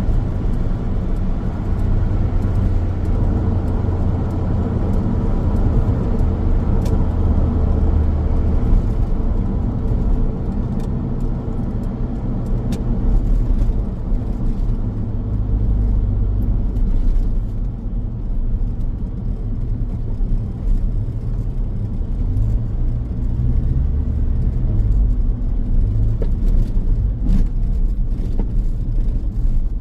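Car driving along a highway: steady low road and tyre rumble with engine noise, swelling and easing slightly in level.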